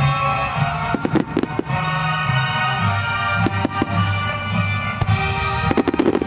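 Music accompanying a fireworks display, with firework bursts cutting through it: a cluster of bangs about a second in, two more around three and a half seconds, and a rapid crackling run of bursts near the end.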